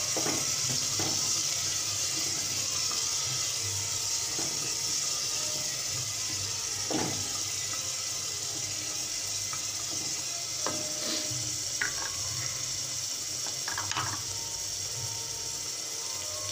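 Chickpeas cooking in spiced liquid in a pressure cooker, with a steady hiss and occasional knocks and scrapes of a wooden spatula stirring them against the pot.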